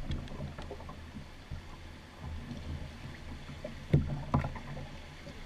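Steady rush of shallow river rapids around a canoe being poled, with a low rumble, and one sharp knock about four seconds in.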